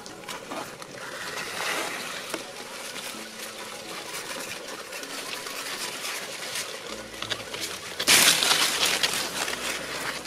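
Fig leaves and branches rustling with small ticks as a hand reaches into the tree and picks a ripe fig, with a louder burst of rustling about eight seconds in.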